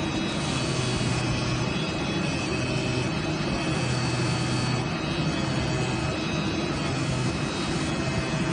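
CNC oscillating-knife cutting machine running steadily while it cuts cardboard: a continuous mechanical hum with a dense hiss over it. The hiss swells in the high range briefly about half a second in, again near five seconds and again past seven seconds.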